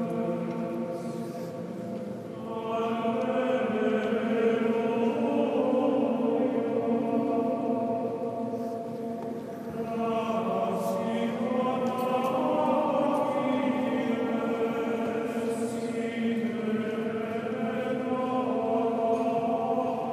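Choir singing a slow liturgical chant in long sustained phrases, breaking off briefly twice between phrases.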